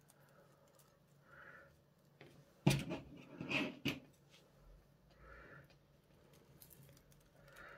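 Hands handling stiff sinamay fabric on a cutting mat: soft rustling, with a quick run of sharp clicks and rustles about three seconds in.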